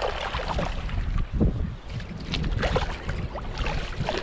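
Wind buffeting the microphone over water lapping and splashing around a fishing kayak, with scattered small splashes and knocks as a landing net goes into the water.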